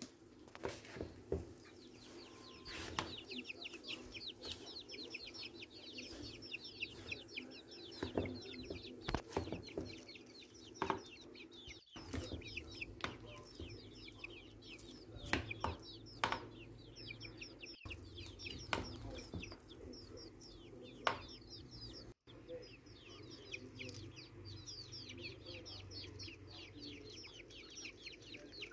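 A spatula knocks and scrapes against a plastic mixing bowl as thick oat batter is stirred, in scattered sharp strokes. Behind it, birds chirp rapidly and without pause over a steady low hum.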